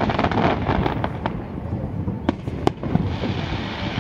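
Fireworks display: a continuous rumble of overlapping shell bursts, with a few sharper bangs standing out.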